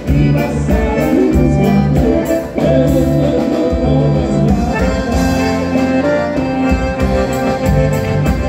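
Live bailão dance-band music led by accordion over electric bass and drums, with a steady beat.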